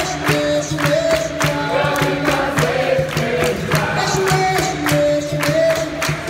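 Capoeira roda music: berimbaus and an atabaque drum keeping a steady rhythm, with hand-clapping and a group singing a chorus of long held notes.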